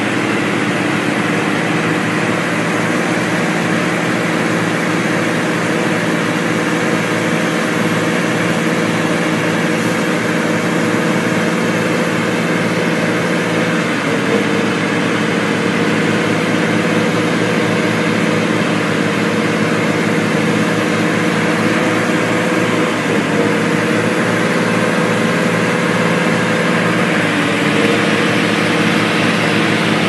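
Heavy diesel engines running steadily under load as a farm tractor tows a motor grader through mud on a cable, the engine note shifting slightly about halfway through.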